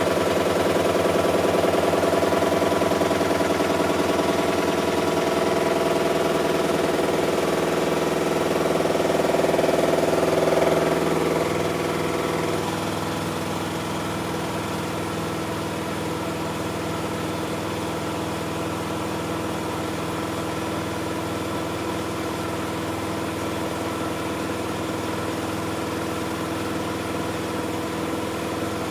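Miele Softtronic W6544 washing machine running: a steady motor hum with several tones. About eleven seconds in it drops in level and changes tone, then runs on steadily.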